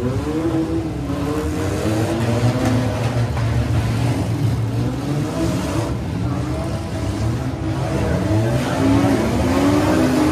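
Several six-cylinder demolition derby cars' engines running and revving together, their pitches rising and falling over one another, with crowd noise behind.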